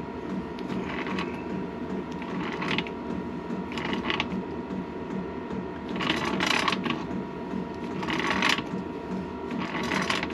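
Hand tools working on a motorcycle engine part: a short scraping or ratcheting stroke roughly every one and a half to two seconds, over a steady low hum.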